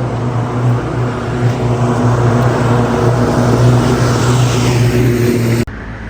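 A motor vehicle's engine and road noise: a steady low hum with a hiss that swells in the middle, cut off abruptly near the end.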